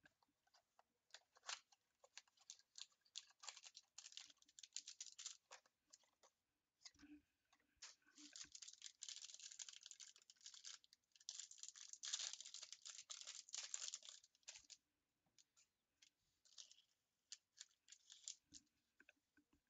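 Quiet tearing and crinkling of trading card pack wrapping as a new box of packs is opened: a run of small crackles and clicks, with two denser stretches of crinkling in the middle, then thinning out to scattered crackles.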